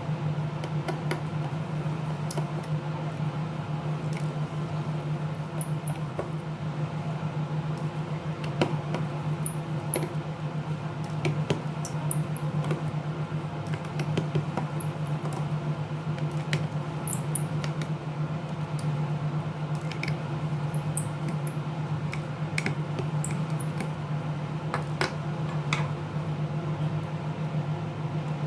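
Small repair tools clicking and tapping on a tablet's parts during disassembly, scattered irregular ticks over a steady low electrical hum.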